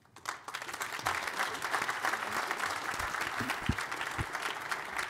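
Audience applauding, swelling within the first second and then holding steady, with a few low thumps partway through.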